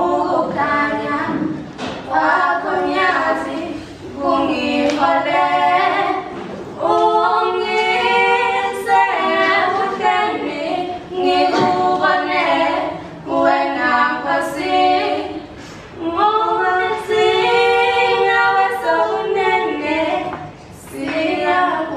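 A choir singing a hymn a cappella: several voices in parallel, sustained notes sung in phrases with brief breaks between them.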